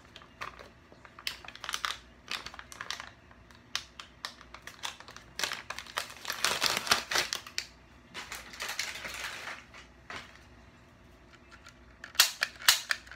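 Plastic blister packaging of a toy cap gun being handled and pulled open: scattered clicks and crinkling plastic, denser twice in the middle. Near the end comes a quick run of loud, sharp plastic clicks as the freed toy gun is handled.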